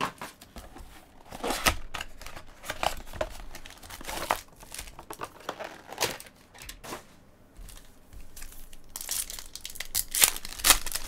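Foil wrappers of 2016 Bowman's Best baseball card packs crinkling as they are pulled from their cardboard box and handled, in irregular bursts. Near the end a pack wrapper tears open in a louder run of crinkling.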